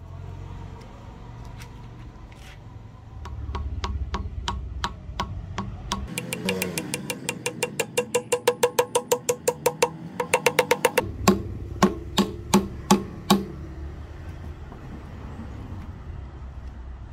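A hammer driving a wooden wedge into the slotted top of an ebony handle in a claw hammer head: a run of quick light taps that speeds up, then about six harder, spaced blows near the end.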